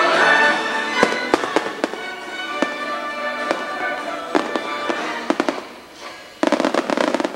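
Aerial fireworks shells bursting with bangs and crackles over the show's music. The bangs begin about a second in, and near the end a dense run of crackling starts suddenly.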